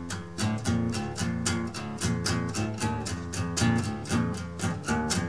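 Instrumental opening of a song: guitar chords strummed in a steady, even rhythm, with no voice yet.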